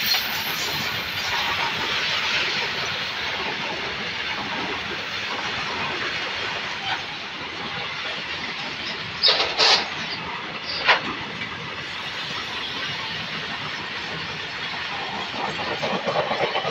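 Freight train of open-top box wagons rolling past close by: a steady rush of wheel and rail noise, with three short sharp knocks about nine to eleven seconds in.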